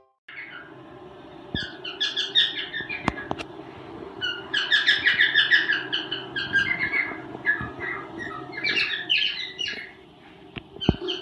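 Cockatiel chirping and chattering in quick runs of short notes, easing off about ten seconds in and starting again just before the end. A few sharp clicks are scattered among the calls.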